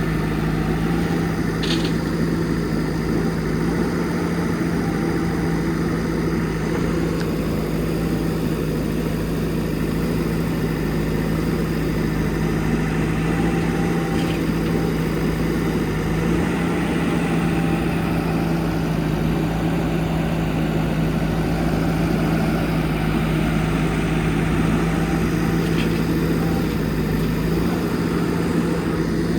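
Heavy diesel engine running at a steady speed, with a few faint clicks.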